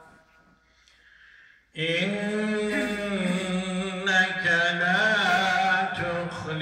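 A man reciting the Quran in Arabic in a melodic chant. A breath-long pause of near silence comes first, then the recitation starts again about two seconds in with long, ornamented held notes that rise and fall.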